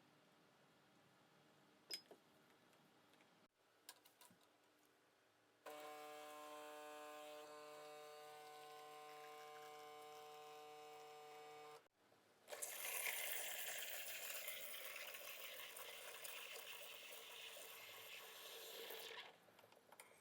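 A few faint clicks, then a steady machine hum for about six seconds, followed by an even hiss for about seven seconds that stops abruptly.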